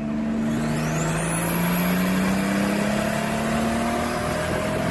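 Car engine running, its note slowly climbing, with a high whine that rises quickly over the first second or so and then holds steady.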